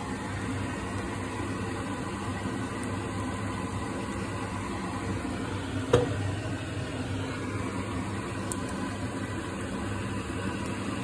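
Vegetables and lentils frying in a saucepan on the stove, a steady sizzle, with one sharp click about six seconds in.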